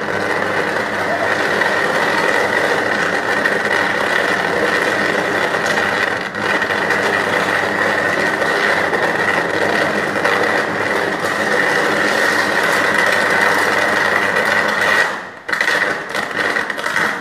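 Short-circuit fault on an overhead power line arcing continuously at a utility pole: a loud, steady crackling buzz with a high hum running through it. About fifteen seconds in it drops out briefly, then comes back in broken sputters.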